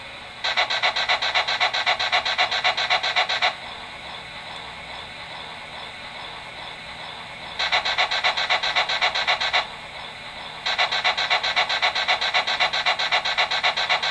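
Recorded startup sound effect from an MTH EST Class 241A model steam locomotive: water being pumped into the boiler. It comes as three runs of fast, even rasping pump strokes, a few seconds each, with short pauses and a faint hiss between them.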